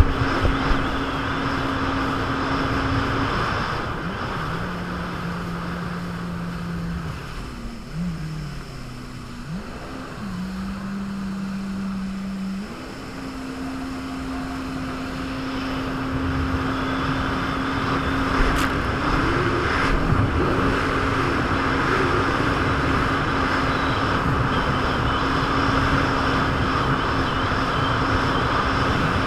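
Jet ski engine running at speed with a steady rush of water and wind. About four seconds in it throttles back to a lower pitch, wavers up and down, then picks up again about thirteen seconds in and runs steady.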